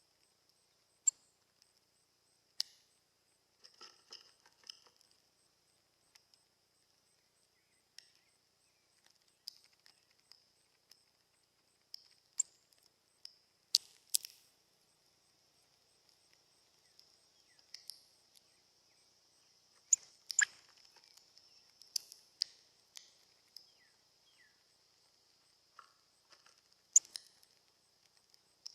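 Irregular sharp clicks and taps from small birds close to the microphone, over a faint steady high-pitched hiss.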